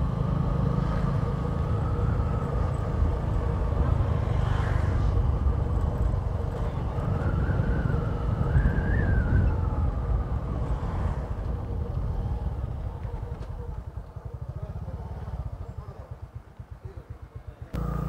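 Motorcycle engine running under way, with a faint whine that rises and falls about halfway through. In the last few seconds the engine drops to a slow idle with distinct, even pulses.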